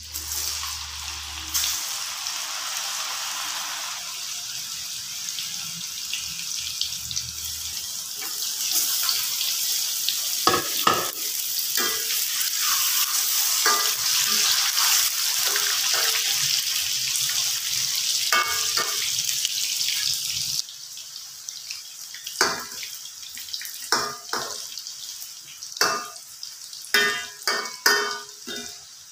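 Sticks of soy bean curd (tempe) deep-frying in hot oil in a metal wok, a loud steady sizzle. A metal spatula scrapes and clinks against the wok. About twenty seconds in the sizzle drops abruptly to a quieter bubbling, and near the end a slotted spoon knocks against the wok several times.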